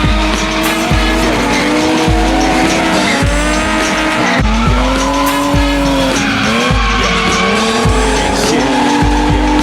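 Drift cars' engines revving up and down with tyres squealing, mixed with music that has a bass pulse about once a second.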